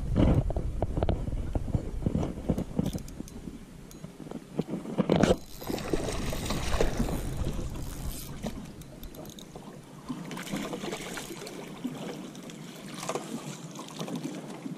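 Water splashing as a hooked smallmouth bass thrashes at the surface beside the boat and is scooped into a landing net, with a sharp knock about five seconds in. Wind buffets the microphone during the first few seconds.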